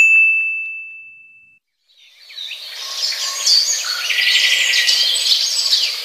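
A single ding: one sharp strike that rings on one high pitch and fades away over about a second and a half. About two seconds in, a chorus of birds starts chirping and singing, many overlapping calls and trills.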